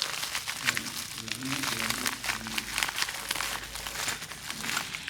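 Dense crinkling and clicking handling noise, like packaging being handled, with indistinct voices underneath.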